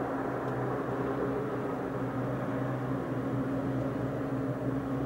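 Rescue helicopter hovering: a steady, even drone of engine and rotor.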